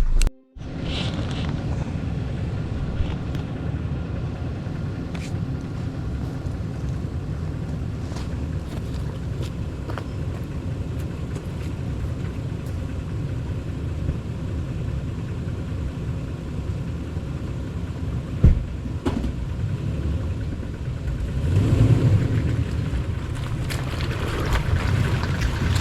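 4x4 vehicle crawling slowly over a rocky trail: a steady low engine and tyre rumble with scattered knocks and creaks. There is one sharp thump about 18 seconds in, and the rumble grows louder around 22 seconds in.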